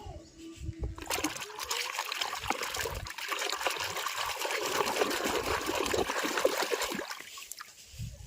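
Water running and splashing, with many small spatters. It starts about a second in and stops near the end.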